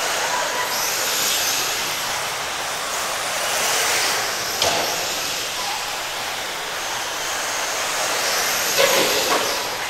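RC cars racing on a dirt oval: a steady hiss of motors and tyres on dirt that swells and fades as the cars pass, with a couple of sharp knocks about halfway through and near the end.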